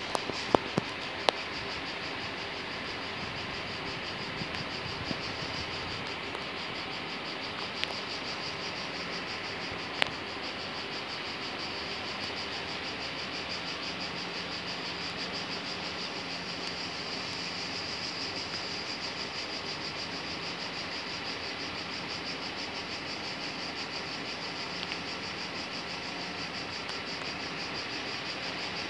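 Steady high-pitched chorus of summer insects, a continuous shrill drone. A few sharp clicks sound in the first second or so and once more about ten seconds in.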